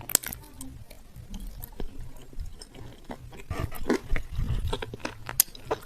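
Close-miked chewing of crunchy edible clay: irregular sharp crunches and crackles in the mouth, with a few louder crunches about three and a half to four and a half seconds in.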